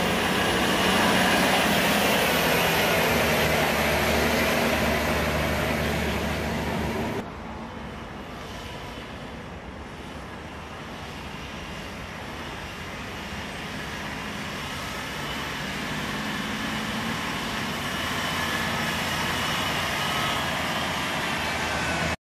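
Ginaf multi-axle dump truck's diesel engine running as the truck drives through mud. About seven seconds in, the sound cuts to a quieter engine that grows steadily louder, then stops abruptly near the end.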